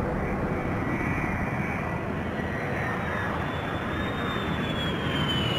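F-16 fighter jet's turbofan engine on landing approach: a steady, loud rush with a high turbine whine that slowly falls in pitch in the last couple of seconds.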